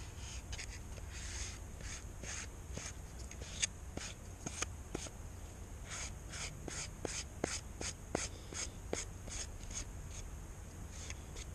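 Short scratchy scraping strokes, irregular, about one or two a second: a squeegee pressing epoxy and trapped air across a test sample. A low steady hum runs underneath.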